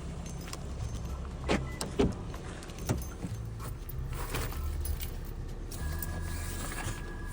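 Steady low rumble of a car in motion, with a few short knocks.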